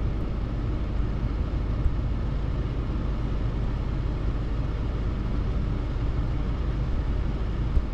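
Steady low rumble of a stationary vehicle idling, heard from inside the cab.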